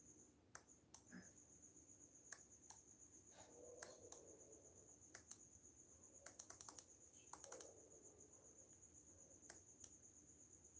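Faint steady chirping of crickets, broken off for a moment at the start, with scattered faint sharp clicks over it, two quick runs of them about six and a half and seven and a half seconds in.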